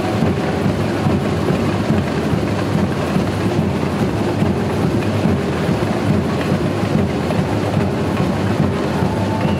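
Samba bateria playing a steady, dense groove together: big surdo bass drums, snare drums and metal platinela shakers.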